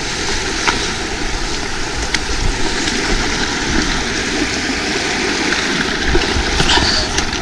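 Shallow river running over rocks, with splashing as a mountain bike is walked through the water and wind rumbling on the microphone.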